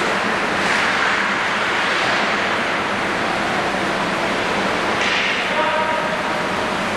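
Steady rushing hiss of ice rink ambience, with a few louder swishes of skate blades on the ice, about a second in and again about five seconds in.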